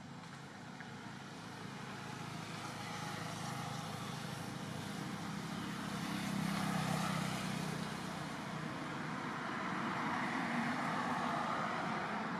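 Passing motor traffic: a rushing noise with a low engine hum that swells, peaks about six to seven seconds in, dips, and swells again near the end.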